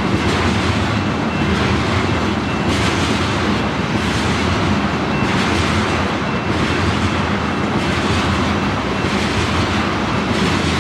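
Tank cars of a crude oil unit train rolling past at trackside: steady rumble of steel wheels on rail, swelling every second or so as each set of wheels goes by, with some clickety-clack.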